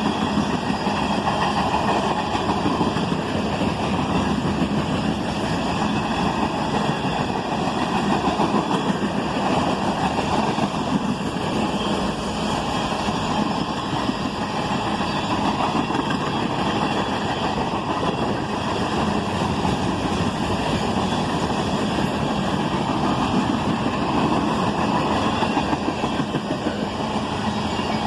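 Freight cars of a manifest train rolling past, a steady rumble of steel wheels on rail.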